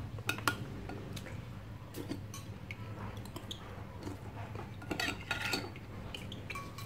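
Metal spoon clinking and scraping against a glass bowl while eating, in scattered taps, with a cluster of clinks about five seconds in.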